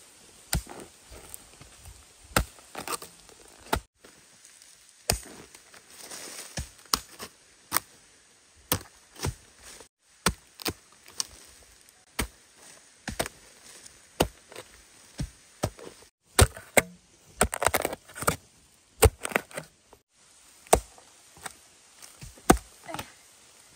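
A blade or digging tool striking repeatedly, chopping and digging out a bamboo shoot: sharp, irregular strikes about one a second, coming thicker about two thirds of the way through.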